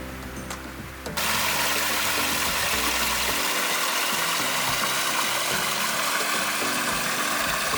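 Steady rush of flowing water, a mountain stream or small waterfall, loud and even, starting abruptly about a second in and cutting off sharply at the end.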